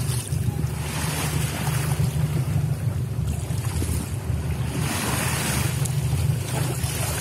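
Wind buffeting the microphone and sea water washing around a small boat, over a steady low rumble; the hissing washes swell and fade several times.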